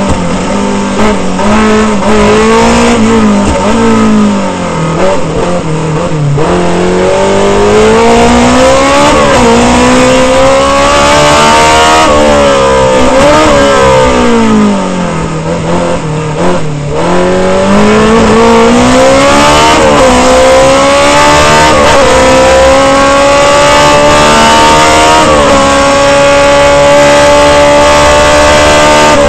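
Abarth 2000 Sport Prototipo's four-cylinder racing engine heard from the open cockpit at full hillclimb pace. Its pitch drops several times as it backs off for bends and climbs again through the gears, holding high and steady near the end.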